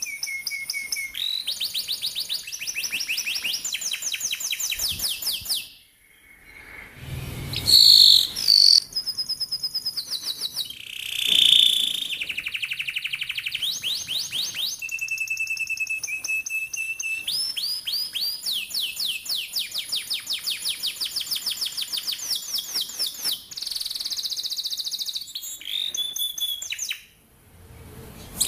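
Domestic canary singing long, rapid rolls of repeated down-sweeping notes, switching from one roll to another every few seconds, with brief pauses. A short, louder call about eight seconds in.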